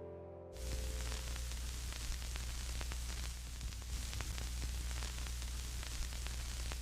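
Steady static hiss with fine crackling and a low hum, starting abruptly about half a second in.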